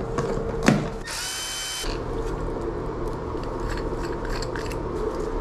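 Handling of a brass shower valve and its plastic cartridge: small clicks and knocks of the parts in gloved hands, over a steady low hum. About a second in there is a brief high-pitched whirring sound lasting under a second.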